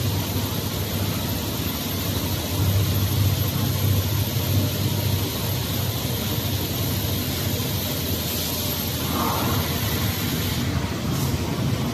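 Fiber cement board production line machinery running, a steady low hum under a broad hiss of factory noise. The hiss dulls near the end while the hum carries on.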